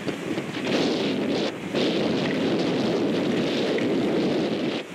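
Excavator's demolition grapple tearing into a brick building's gable: a dense crunching rumble of breaking timber and masonry, easing briefly about a second and a half in and stopping just before the end.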